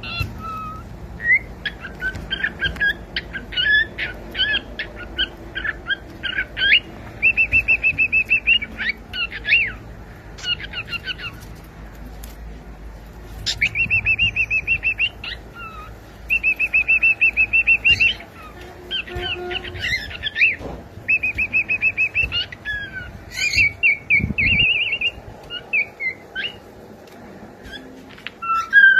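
Cockatiel chirping and whistling: quick rising and falling chirps mixed with several rapid trills held on one note, each burst lasting a second or a few seconds.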